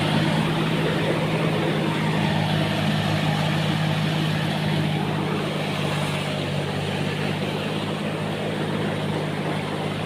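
An engine running steadily: a constant low drone under an even rushing hiss.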